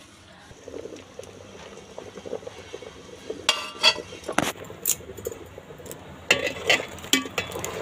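Metal clinking and knocking on an aluminium cooking pot: a steel plate lid is lifted off, then a steel ladle clinks against the pot as the dalma is stirred, in two short clusters of sharp knocks.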